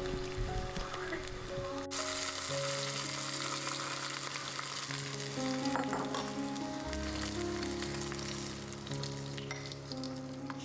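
Hot oil with cumin seeds, dried red chillies and curry leaves sizzling hard as a tadka (tempering), jumping louder about two seconds in as it is poured onto tomato chutney, then dying down slowly. Soft background music plays beneath.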